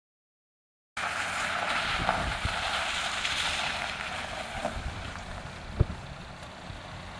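Outdoor rushing noise, like a vehicle going by or wind on the microphone, starting suddenly about a second in and slowly fading, with low thumps and a sharp knock near the end.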